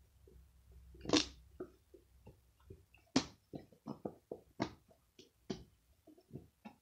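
Slime being squeezed and kneaded by hand, giving an irregular run of wet clicks and pops, with two louder pops about a second and three seconds in.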